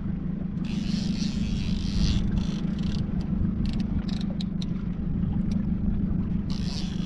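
Small fishing boat's motor running steadily at low speed, a constant hum, with patches of hiss and a few light clicks over it.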